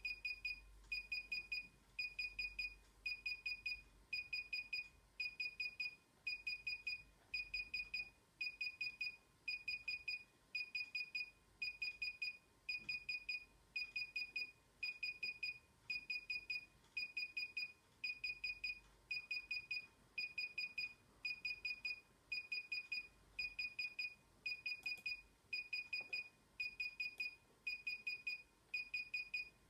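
DJI Inspire 1 remote controller beeping while its firmware update installs: short high beeps in quick groups of about four, repeating about once a second.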